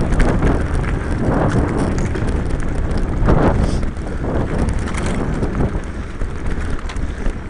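Mountain bike riding over a dirt singletrack: wind buffeting the microphone as a steady low rumble, with tyre noise and scattered knocks and rattles from the bike over bumps.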